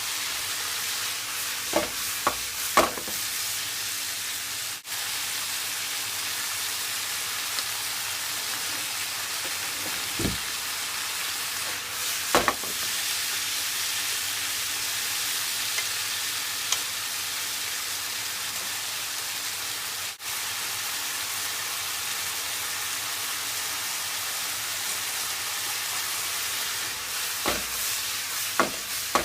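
Chicken breast and broccoli stir-frying in a hot pan: a steady sizzle, with a few sharp knocks of a utensil against the pan as the food is stirred.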